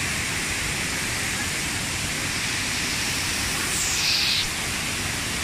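Asik-Asik Falls' curtain of water pouring down the cliff face and over the rocks in a steady rush, with a brief, louder, higher hiss about four seconds in.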